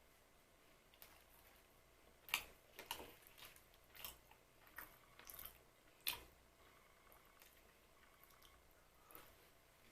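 A crisp bite into glazed puff-pastry sfogliatine about two seconds in, then a run of crunchy chewing, with a second sharp bite about six seconds in.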